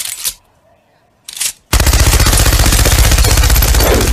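Machine-gun sound effect: two short bursts of noise, then from a little under two seconds in, loud, sustained rapid automatic fire.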